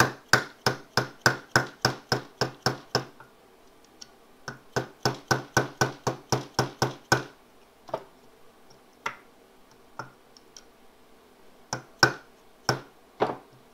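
Small hammer tapping a pin punch to drive a roll pin into the frame of a Phoenix Arms HP22A pistol. Two quick runs of evenly spaced taps, about three a second, are broken by a short pause, and a few slower single taps follow near the end as the pin seats.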